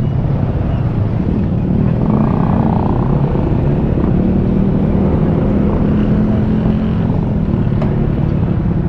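Motorcycle running at a steady cruising speed, its engine a low even drone under a heavy rush of wind noise on the microphone.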